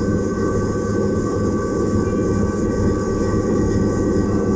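Slipway cable winches running steadily, their electric motors and reduction gears turning the cable drums to lower a heavy fishing boat down the rails: a loud, even low hum with a steady gear whine above it.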